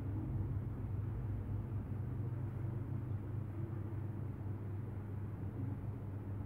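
Steady low hum with a noisy background.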